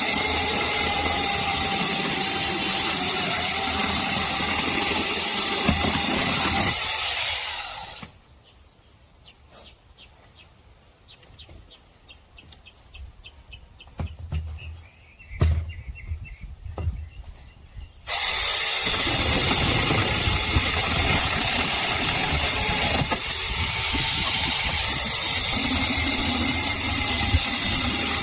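Battery-powered 6-inch mini chainsaw running with a steady whine. It stops for about ten seconds of near quiet with a few faint clicks, then runs again.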